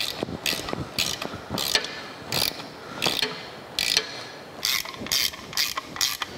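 Hand ratchet clicking in short repeated bursts as bolts holding the Bijur oil pump's plate are run into its mounting bracket. The bursts are uneven at first and settle to about two a second in the second half.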